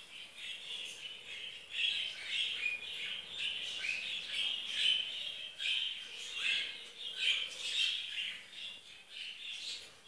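Young budgerigars chirping and squawking together in a busy, unbroken chatter of short, high calls.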